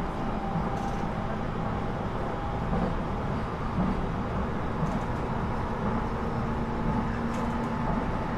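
Cabin noise inside a Sendai Airport Line electric commuter train running on the track: a steady low rumble of wheels on rail, with a faint steady hum on top.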